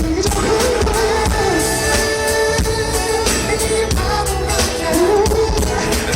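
Pop song with a sung vocal melody over a steady beat.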